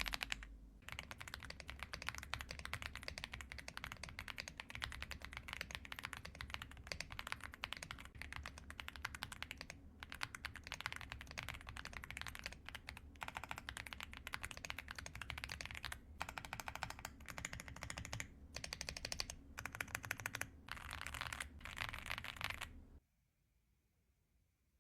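Continuous fast typing on a mechanical keyboard: rapid muted clicks with brief pauses, stopping abruptly near the end.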